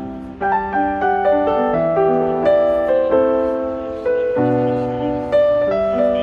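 Piano music: a slow melody of struck notes over lower chords, each note sounding sharply and then dying away.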